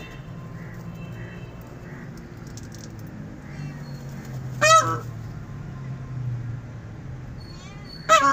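Indian peafowl calling: two short, loud calls, the first about halfway through and the second near the end.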